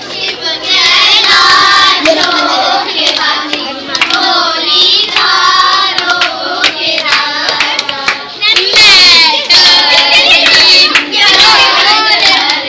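A group of children singing together loudly in a room, with hand claps throughout.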